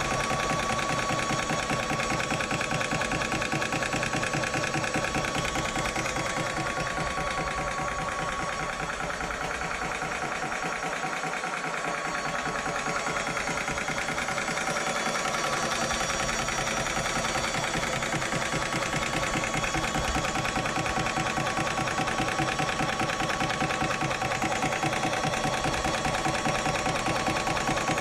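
Hatsan portable PCP compressor running, a fast, steady mechanical chugging with a constant whine, filling the air rifle's air reservoir.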